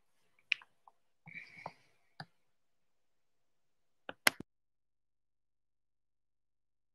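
Handling noise close to the microphone as someone works the recording device: a few scattered clicks and a short rustle, then a quick cluster of three sharp clicks about four seconds in.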